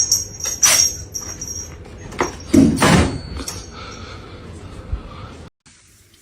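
A few sharp clicks and knocks, with the loudest thump about three seconds in, over a low steady hum that cuts off abruptly about a second before the end.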